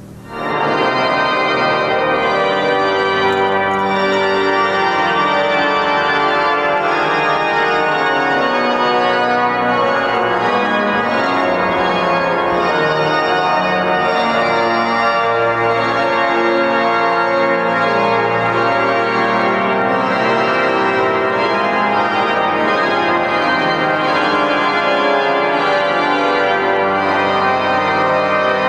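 Cathedral pipe organ playing full, sustained chords that come in sharply at the start and carry on loud and steady.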